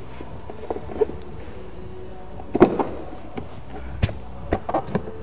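Scattered sharp clicks and knocks over a steady low hum, the strongest about two and a half seconds in and several more close together near the end.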